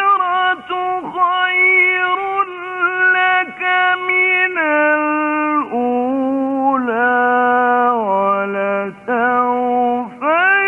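A male Quran reciter chanting in the melodic tajweed style, drawing out long held notes. The notes hold high at first, step down lower and lower through the middle, and climb back up near the end.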